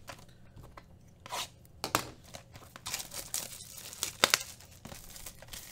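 Clear plastic shrink-wrap being torn and crumpled off a sealed box of trading cards: crinkling with several sharp rips.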